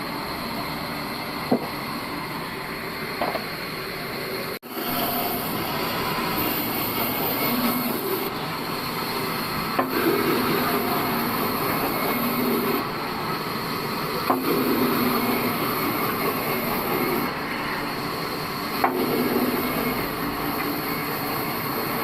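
Old bandsaw sawmill running steadily as its blade cuts through a log, the pitch of the cut shifting as it goes, with a few sharp ticks.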